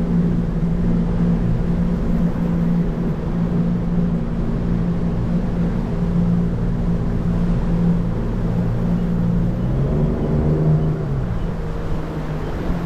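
Boat motor running steadily with a constant pitched drone. About ten seconds in, its pitch briefly drops and comes back up.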